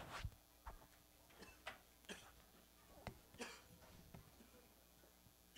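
Near silence: faint room tone with a handful of soft knocks and clicks scattered through it, as people move about the room.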